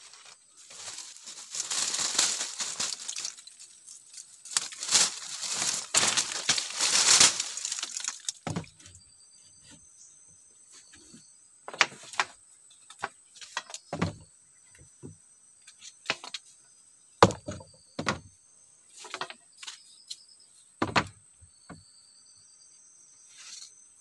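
Split bamboo slats rubbing and scraping against each other as they are handled for several seconds, then about ten sharp clacks, one every second or two, as slats are set down on a bamboo pole frame. Insects shrill steadily in the background.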